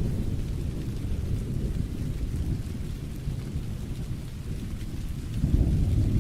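Thunderstorm: a low thunder rumble over steady rain. The rumble eases off, then swells again about five seconds in.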